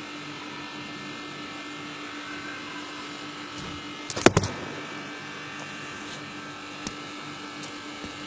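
Steady mechanical hum with a constant tone, and a short cluster of sharp knocks about four seconds in.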